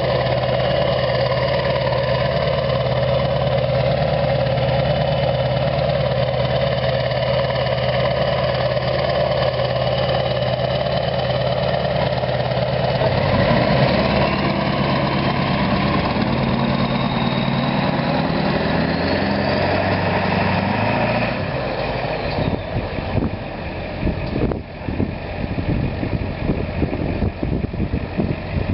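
A 7.3 Powerstroke V8 turbodiesel with a straight-piped 4-inch exhaust and a Wicked Wheel turbo compressor wheel idles steadily. About halfway through it pulls away, its pitch rising with a climbing turbo whistle, and the sound then turns rougher and quieter as the truck drives past.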